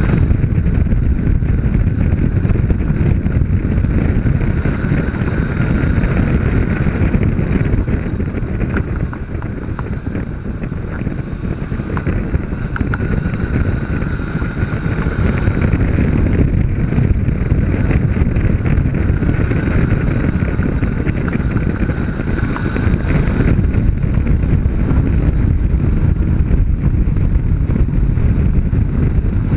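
Honda CB500 motorcycle ridden at speed, heavy wind buffeting on the microphone over its parallel-twin engine running, with a higher engine tone that comes and goes several times.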